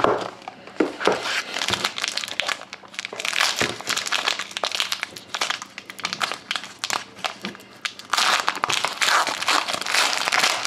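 Foil trading-card pack crinkling and being torn open by hand, with scattered crackles at first and dense, continuous crinkling from about eight seconds in.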